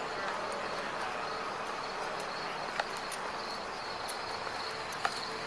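Steady outdoor background noise with insects chirring, and a faint click about halfway through and another near the end.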